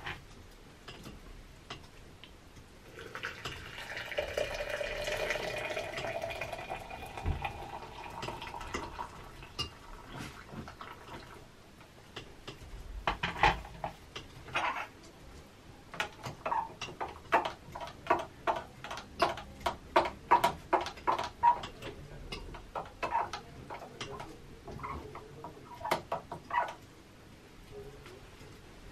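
Water poured from an electric kettle into a glass French press of coffee grounds, the pitch rising as the press fills. Then a run of quick light clinks, about two or three a second, as a spoon stirs the coffee against the glass.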